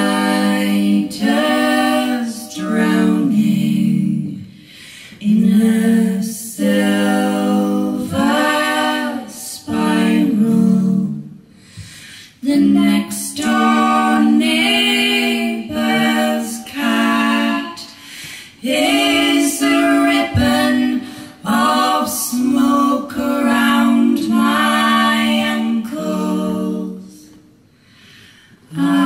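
Three women singing an unaccompanied folk song in close harmony, in phrases of a few seconds with short breaks for breath.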